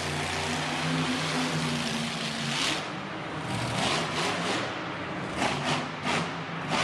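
Monster truck engines running on the arena floor: a steady engine drone for the first couple of seconds, then a series of short revs.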